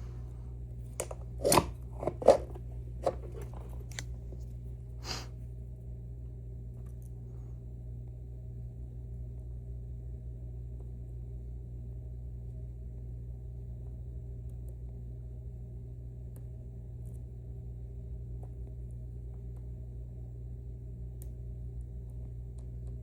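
Handling a dimple lock and metal tools: a handful of sharp clicks and knocks over the first five seconds, then only a steady low background hum.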